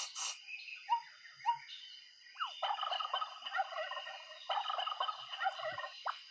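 Turkey gobbling: two long, rapid rattling gobbles, the first starting about two and a half seconds in and the second about four and a half seconds in, after a few short chirps.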